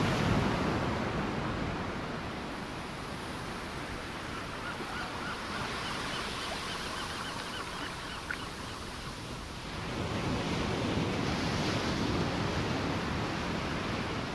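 Ocean surf washing over rocky outcrops in a steady rush, louder at the start and again from about two-thirds of the way in. In the quieter middle stretch comes a faint, distant run of short honking calls from sea lions hauled out on the rocks.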